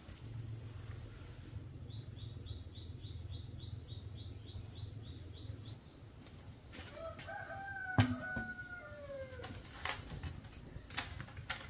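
A rooster crowing once, a drawn-out call that falls away at the end, starting about seven seconds in. Sharp clicks or flaps come around it, the loudest in the middle of the crow. Before it, a low hum and a quick, even high ticking, about four a second.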